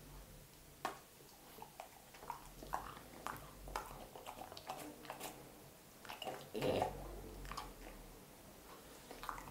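A dog chewing and crunching small baked treats made of poultry sausage, wholemeal flour and egg, in irregular crisp bites, with one louder, fuller bite about two-thirds of the way through.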